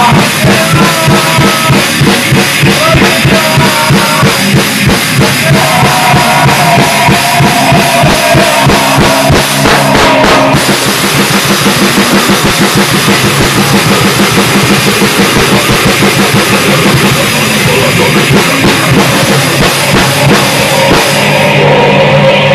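Grindcore band playing: a drum kit hammering out very fast strokes with cymbals under a wall of distorted guitar. A higher melodic line runs over it for about the first ten seconds, then drops out.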